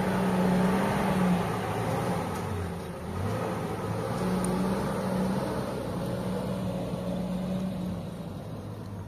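Pickup truck engine running as the truck drives off on a dirt track. Its note drops about three seconds in and climbs again, and it grows fainter toward the end as the truck pulls away.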